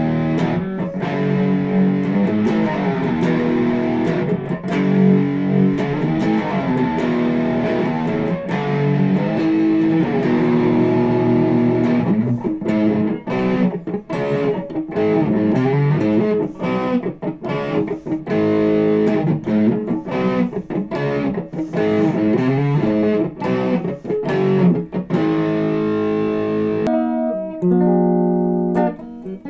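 Electric guitar, a custom shop SG, played through an amplifier in chords and picked note runs. About two seconds before the end the bright edge of the tone drops away and it sounds darker.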